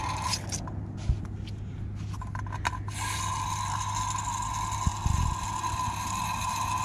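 Water hissing through the partly opened valve of a pool pressure-test rig as it fills an empty plumbing line. The hiss cuts off just under a second in, a few clicks of the valve handle follow, and about three seconds in the hiss comes back and runs steadily.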